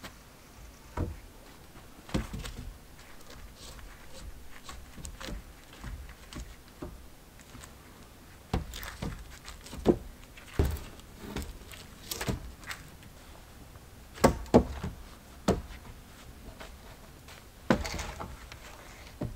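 Wooden logs and poles knocking and thudding against each other as they are laid onto a log shelter's roof frame: irregular knocks, with the loudest ones near the middle and about a second before the end.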